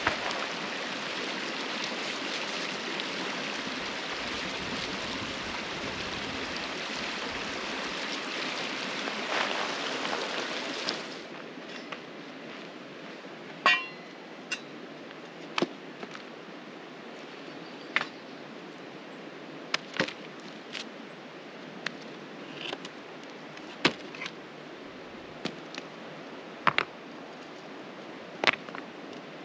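A creek flows steadily at first. About eleven seconds in this gives way to quieter surroundings, broken by a dozen or so sharp knocks of stones and a metal shovel being worked in a rock fire ring.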